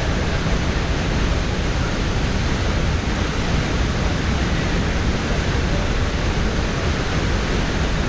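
The steady, loud roar of Huka Falls: the Waikato River's full flow, squeezed through a narrow rock ravine, pouring over the falls into a churning pool.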